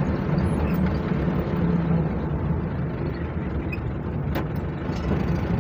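Engine and road noise inside a moving vehicle's cabin, a steady low drone, with one brief click a little over four seconds in.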